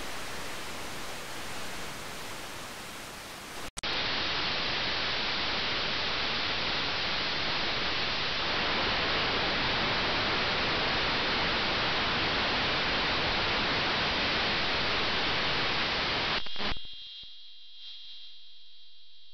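Static hiss from a software-defined radio receiver's FM demodulator. About four seconds in the hiss cuts out for an instant and comes back louder, with its top end cut off, as the receiver switches to narrowband FM. Near the end the hiss drops away, leaving a few faint steady high tones.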